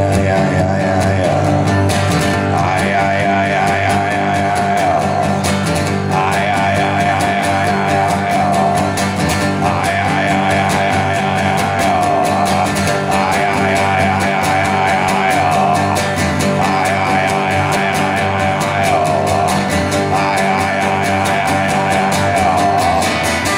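Live rock music: an amplified guitar plays an instrumental passage, a wavering phrase repeating about every three seconds over a steady low drone.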